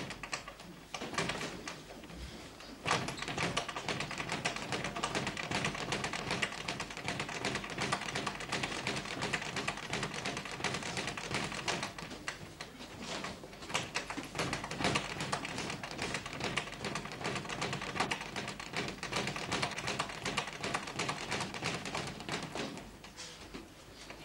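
A fast, continuous rattle of sharp taps from boxing gym training, easing off briefly about a second in and again halfway through.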